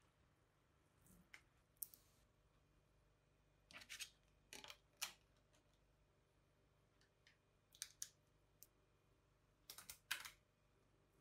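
Small metal magnetic balls clicking against each other as a model built from them is handled and pressed into shape: faint, scattered short clicks, some in quick clusters of two or three, a second or two apart.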